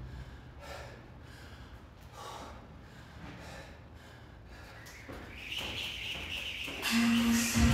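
A person breathing hard in repeated heavy breaths, winded from exertion in the middle of a workout. Music comes back in near the end.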